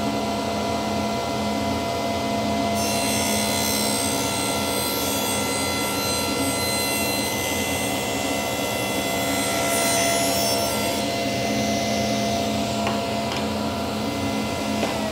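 Table saw running with a steady motor hum, its blade ripping a thin strip off an oak board with a higher whine from about 3 s to about 11 s in. Right at the end the saw is switched off and its pitch starts to fall as the blade spins down.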